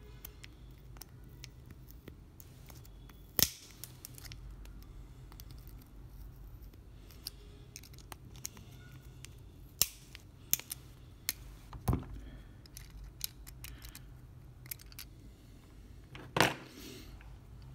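Flush side cutters nipping and cracking away the plastic housing of a PS4 controller's analog stick module: sharp snips and snaps at irregular intervals, a few much louder than the rest, one near the end drawn out as the plastic cracks.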